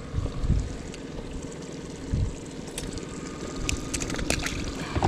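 Wind and water noise around a small metal fishing boat, with two low thumps and a run of light clicks from handling the hooked fish and tackle.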